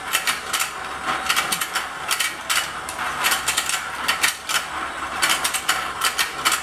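Battery-powered fishing game toy running: its plastic gear mechanism clicks and rattles in rapid clusters as the pond turns and the fish mouths open and close.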